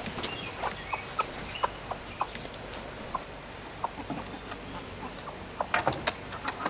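Backyard hybrid laying hens clucking while they peck at kitchen compost scraps: short, scattered clucks from several birds, a few each second, with small clicks in between.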